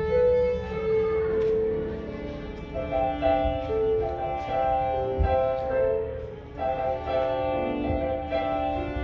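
Music led by a violin, playing a melody of held notes, from musicians practising in the building.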